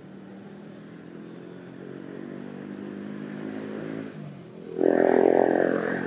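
A motor vehicle's engine on the road, a steady hum that slowly grows louder. Then a much louder pass begins just under five seconds in and lasts about two seconds.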